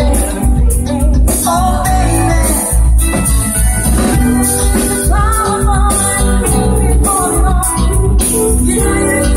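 Live band playing an up-tempo song, with guitars and a strong bass line under a melody line.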